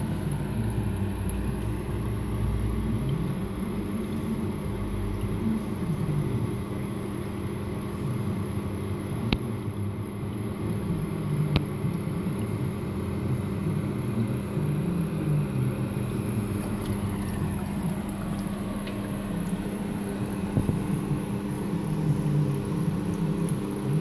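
Steady low mechanical hum with a constant drone, and two faint clicks about 9 and 11 seconds in.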